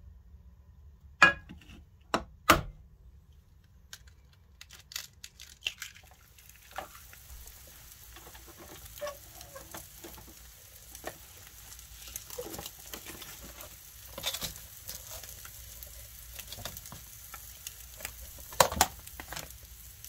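A few sharp knocks of a dish being handled. Then, from about six seconds in, a steady sizzle with crackles from the hot potatoes and eggs cooked in the Hot Logic oven. One louder clatter comes near the end.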